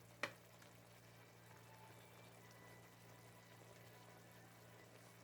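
Near silence: a low steady hum of room tone, broken by one short sharp click about a quarter second in.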